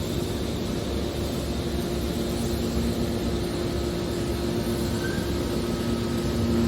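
Hydraulic scrap metal baler running: a steady machine noise with a constant low hum throughout.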